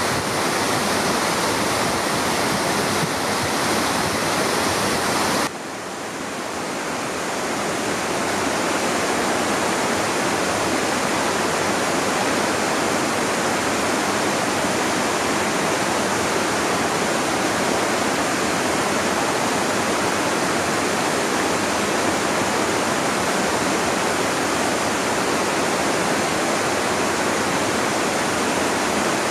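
Water pouring over a small concrete weir on a mountain stream, a steady rush. About five seconds in it drops suddenly to the softer rush of the stream running over rocks, which builds back up over the next couple of seconds and then runs steady.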